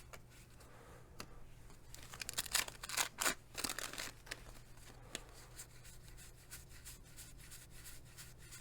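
Baseball cards and a wax-paper pack wrapper being handled: a flurry of crinkling and tearing about two seconds in that lasts a couple of seconds, with light card clicks and rustles around it.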